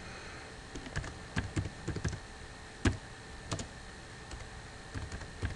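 Typing on a computer keyboard: about a dozen separate keystrokes at an uneven pace, starting about a second in.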